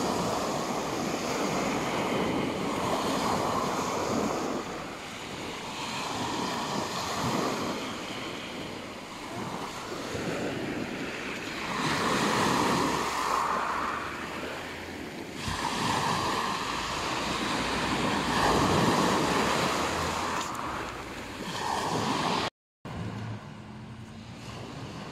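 Sea waves breaking and washing up over a pebble beach, surging every few seconds and then ebbing. Near the end the sound cuts out for a moment and comes back quieter.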